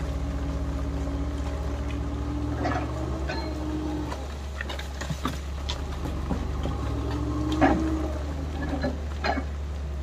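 Tracked excavator's diesel engine running steadily, with a hydraulic whine that shifts in pitch as the arm moves. Several sharp knocks of rock and bucket come through, the loudest a little past the middle.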